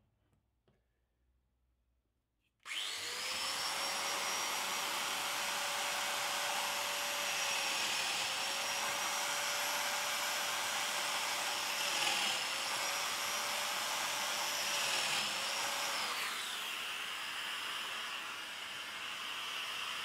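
Festool Domino joiner switched on about three seconds in, its motor running with a steady whine that sags briefly twice as it plunges mortises into the wood. Near the end the whine winds down while a steady rushing noise carries on.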